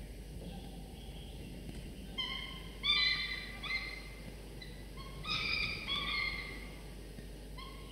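Peregrine falcon chicks begging to be fed: a string of short, harsh, high calls, one after another, beginning about two seconds in and coming in two runs, with another call near the end.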